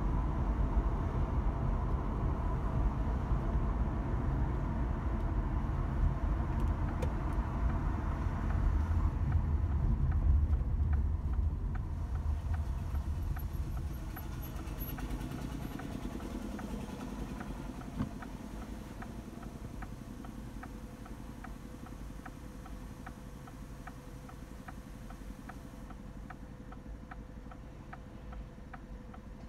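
Car driving noise from inside the cabin: low road and engine rumble that fades away as the car slows. From about ten seconds in, the turn-signal indicator ticks steadily, about one and a half ticks a second.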